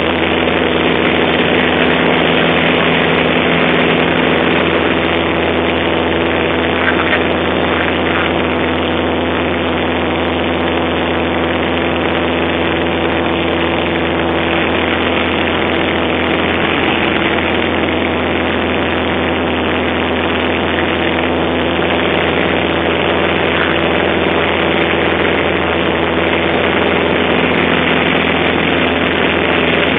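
Piper PA-28's piston engine and propeller droning steadily at climb-out power just after takeoff, heard from inside the cabin. The pitch and loudness hold constant.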